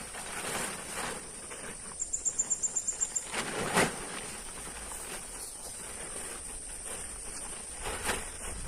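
Outdoor night-time insect sounds: a steady high-pitched drone, with a rapid run of about ten high chirps about two seconds in, and scattered rustles and knocks.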